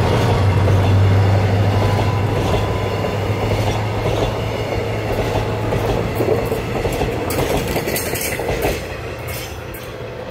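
Converted Saemaeul-ho passenger coaches rolling close past, wheels rumbling on the rails, with a run of clacks near the end. The sound falls away as the last coach clears.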